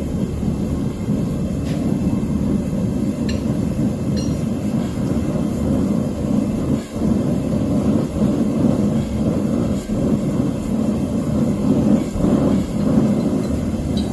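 Forge burning with a steady low roar, with a few faint clicks over it.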